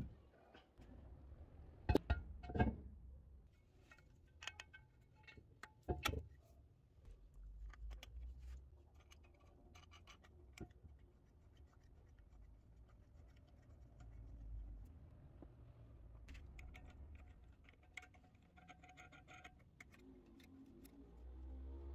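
Handling of a ceramic wall-hung washbasin as it is offered up and hung on its wall studs: a few sharp knocks about two seconds in and again about six seconds in, with scattered small clicks and scrapes of ceramic against the tiles and metal fixings.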